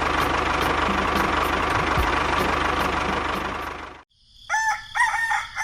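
A small motor and gear train of a DIY mini tractor running with a steady rattle, cutting off suddenly about four seconds in. A chicken then clucks a few times.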